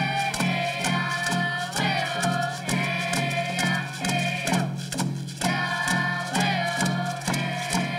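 A group of children and youths singing in unison over rawhide frame hand drums beaten in a steady, even beat of about two to three strokes a second, with hand-held rattles shaken along. The singing breaks off briefly a little past halfway while the drums keep going.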